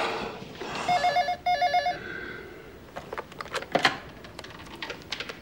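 Telephone ringing, one trilling double ring of two short bursts, followed by a scatter of sharp clicks and knocks.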